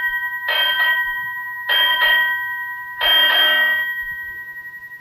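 A bell-like chime struck three times, about a second and a quarter apart, each note ringing on and fading slowly.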